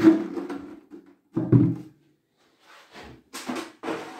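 A wooden pine cabinet carcass is flipped over and set down on a tabletop. There is a knock at the start and a heavier hollow wooden thud about a second and a half later, then lighter knocks and scrapes near the end.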